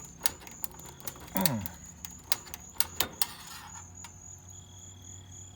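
Irregular sharp clicks and small rattles of hands working wiring and tools in the outdoor unit, as the short common wire is pulled off. A steady high insect trill runs behind, with a low hum.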